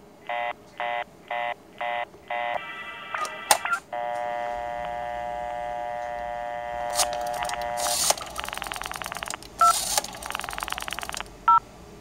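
Vintage telephone-exchange tones heard through a phone receiver: five short beeps, a few sharp clicks, then a steady old-style dial tone. About eight seconds in a rotary dial is turned, and the dial pulses chop the line into rapid clicking, with short DTMF beeps leaking in from the analog telephone adapter converting the pulses.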